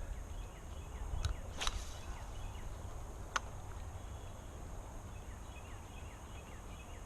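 Outdoor ambience by a pond: a steady low rumble, many faint short descending chirps scattered throughout, and three sharp clicks in the first half.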